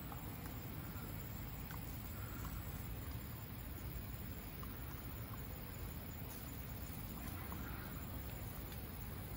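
Faint, steady outdoor background hiss and low rumble, with a few soft, short ticks.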